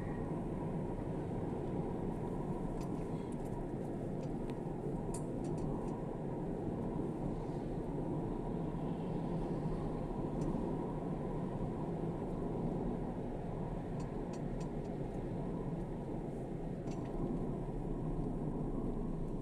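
A steady low mechanical rumble that holds at an even level, with a few faint clicks over it.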